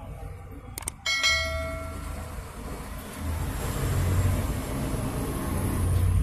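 Mouse clicks followed by a bright bell ding that rings out and fades over about a second: a subscribe-button sound effect. From about three seconds in, a low rumbling noise with hiss swells up and holds.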